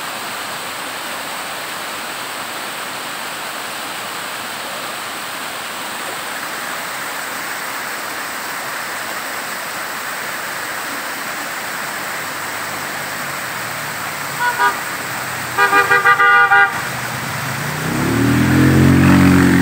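Water rushing and splashing down a rock face in a steady hiss. About fourteen seconds in, a vehicle horn gives two short toots and then a quick string of about five more, and near the end a motor vehicle passes close by, loudest just before the end.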